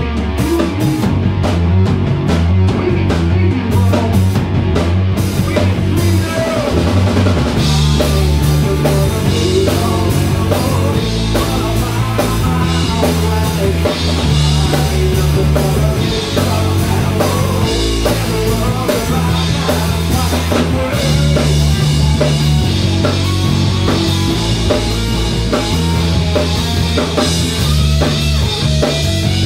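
A three-piece rock band playing live: drum kit, bass guitar and electric guitar. For the first few seconds the drums hit sparsely over the bass line, then about seven seconds in the full band comes in with cymbals washing over a fuller guitar sound.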